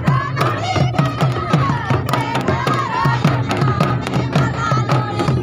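Mandar drums, two-headed barrel drums, beaten in a quick steady rhythm of deep booming strokes and sharp slaps, with a group of voices singing a Karam dance song over them.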